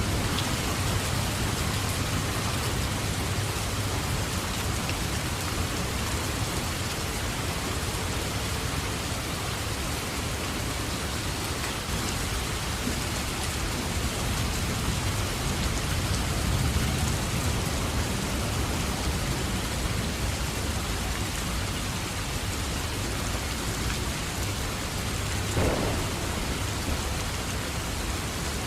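Steady rain falling with low, rolling thunder underneath that swells around the middle of the stretch.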